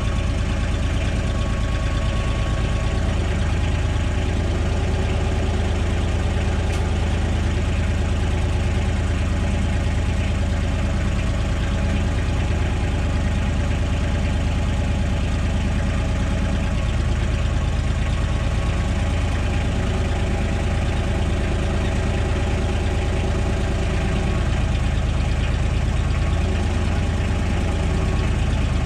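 Tractor engine running steadily at low speed while the tractor is reversed to line its three-point hitch quick-attach frame up with the ballast box.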